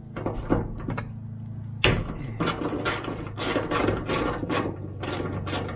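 Hand socket ratchet clicking as a 12 mm bolt on the hood is turned. A few scattered clicks come first, then steady, rapid ratcheting from about two seconds in.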